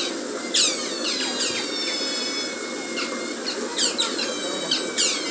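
Asian small-clawed otters giving repeated high, squeaky chirps, each falling quickly in pitch, several in quick succession.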